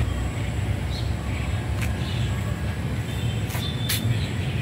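Steady low outdoor rumble, with a few short sharp clicks in the second half.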